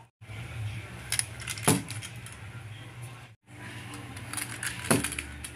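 Toy monster trucks clattering as they crash: a few sharp, hard clacks about a second and a half in and again near the end, over a steady low hum. The sound cuts out briefly midway.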